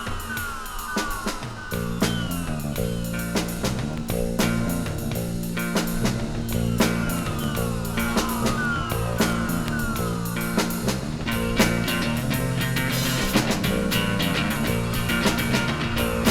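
Garage rock with drums and guitar, played from a 7-inch vinyl record; a bass line comes in about two seconds in, and repeated falling pitch sweeps run over the band.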